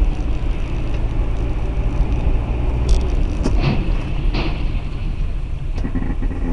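Inside a moving car: steady low rumble of the engine and tyres on a wet road, as picked up by a dashcam. Two brief higher-pitched sounds stand out about three and a half and four and a half seconds in.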